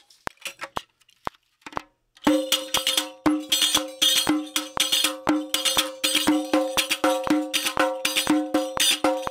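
Riq (Arabic frame tambourine) played in a steady Arabic rhythm: skin strokes with its brass jingles ringing, starting about two seconds in. Before it a metronome clicks alone twice a second as a count-in, and it keeps ticking under the playing.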